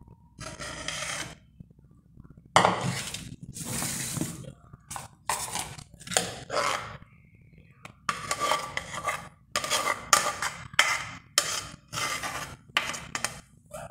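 A metal utensil scraping and knocking against the inside of a pot in a dozen or so irregular strokes, scooping thick soap mixture out into a mould.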